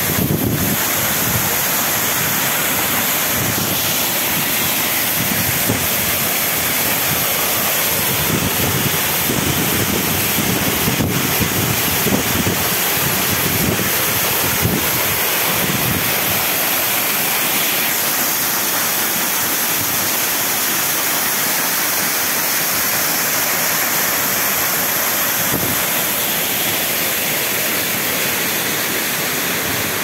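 Mountain waterfall: water rushing steadily, a constant even noise.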